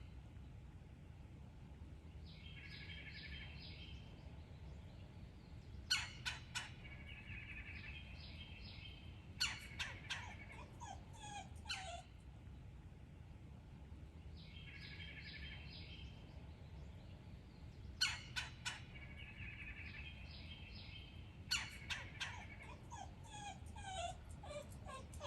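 Woodpecker fussing with bouts of calls every few seconds: rolling, rapid-note churrs and quick series of sharp notes, some falling in pitch.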